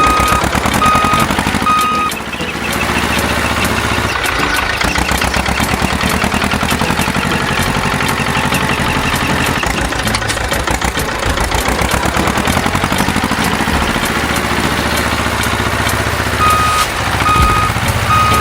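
A vehicle reversing alarm beeping evenly over a running engine. The beeps stop about two seconds in while the engine keeps running, and start again near the end.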